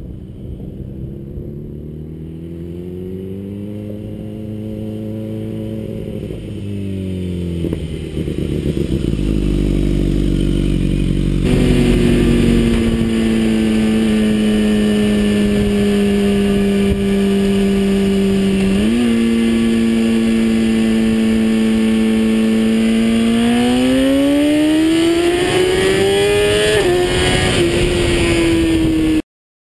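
2011 BMW S1000RR's inline-four running through a Brock's Performance titanium full exhaust. It grows louder and higher as the bike approaches, with a sharp drop in pitch as it goes by. After a sudden cut the sound is heard from on the bike during a second-gear roll-on, a steady engine note with wind rush, and the revs climb near the end before the sound cuts off abruptly.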